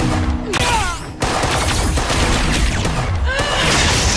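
Rapid gunfire from handguns and rifles in a firefight, with dramatic score music underneath. The shooting drops away briefly about a second in, then resumes.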